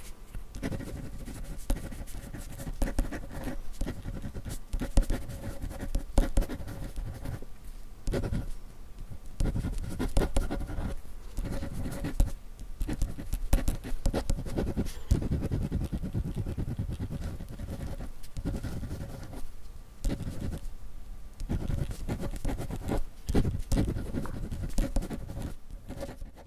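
Pen writing on paper: irregular scratching strokes with short pauses between words, the pen tip rubbing across the sheet.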